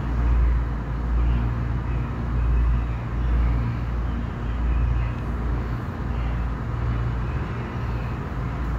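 Automatic tunnel car wash machinery running, with hanging cloth curtains and brushes scrubbing a foamed car, heard from behind glass. It makes a steady low rumble that swells and fades about once a second.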